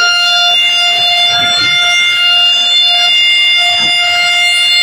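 Truck-mounted DJ sound system blaring a loud, shrill, steady siren-like tone at one unchanging pitch, its lowest note cutting in and out.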